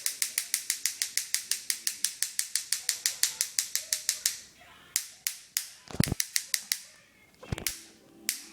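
Rapid, even clicking, about eight clicks a second, that stops about four seconds in. It is followed by a few slower clicks and two dull thumps.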